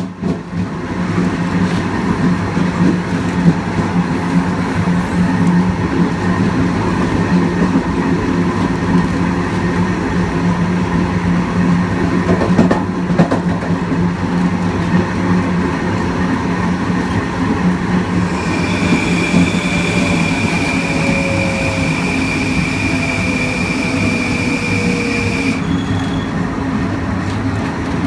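Kawasaki M9 electric multiple unit rolling on the rails with a steady low hum and rumble, and a few wheel clicks about halfway through. About two-thirds in, a steady high-pitched whine from the MELCO IGBT-VVVF traction inverter comes in with a faint slowly falling tone under it. It runs for about seven seconds and then cuts off abruptly.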